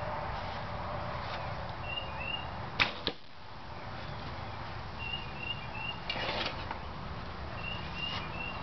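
Homemade recurve bow of 1-inch schedule 40 PVC, drawing in the 50-pound range, shot once: a sharp snap of the string and limbs on release about three seconds in.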